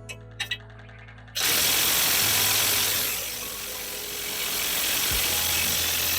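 Half-inch impact wrench hammering an 18 mm suspension bolt loose, starting about a second and a half in and running for about five seconds, briefly easing off in the middle.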